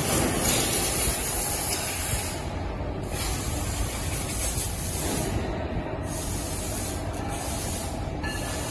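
Machine-shop noise: a loud hiss, like coolant spray or compressed air, that stops briefly a few times, over a steady low machinery rumble.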